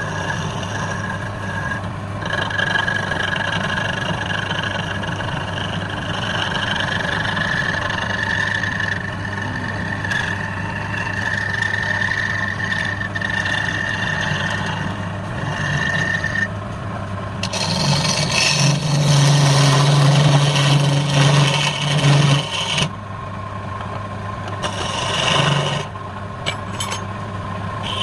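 Wood lathe running with a steady motor hum while a tool cuts the spinning wood, with a held high tone through the first half. About two-thirds through comes a louder, rougher stretch of several seconds.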